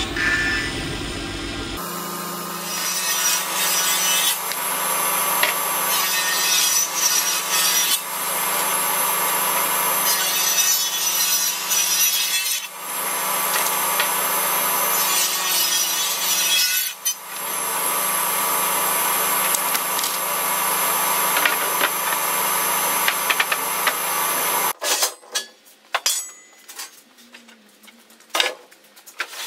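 Table saw ripping maple boards lengthwise: the blade and motor run with a steady hum under the cutting noise, dipping briefly twice between passes. It stops abruptly near the end, followed by a few light knocks and clatters of wooden boards being handled.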